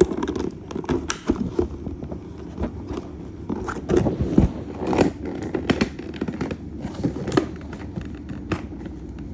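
Plastic toy packaging being handled and pulled open to free small toy figures: irregular crinkling, clicks and scrapes, with a busier cluster about halfway through.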